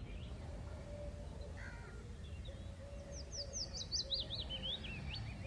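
Quiet outdoor ambience with a faint steady hum. About three seconds in, a small bird sings a quick run of short high chirps that step down in pitch.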